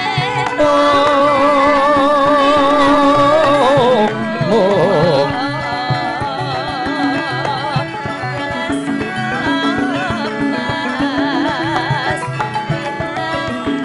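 Javanese gamelan music accompanying a wayang kulit play: a singer holds long, wavering notes, strongest in the first four seconds, then bends into a run, over ringing metallophones and drum strokes.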